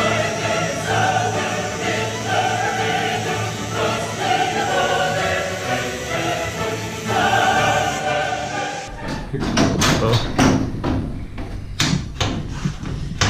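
Background music with a choir singing; about nine seconds in it gives way to a run of sharp knocks and clatter as sheet metal is worked loose from the car body.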